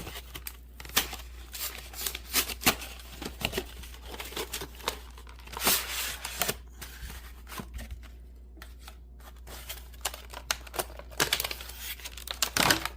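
Product packaging being torn open and handled by hand: crinkling and rustling with tearing and many small clicks and taps.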